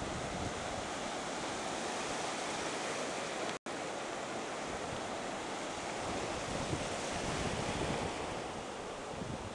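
Ocean surf breaking and washing ashore: a steady rushing wash of waves. The sound cuts out for an instant about three and a half seconds in.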